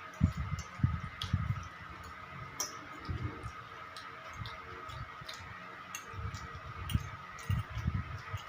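Close-up eating of pork liver: wet chewing and mouth sounds in irregular bursts with small clicks, over a faint steady high hum.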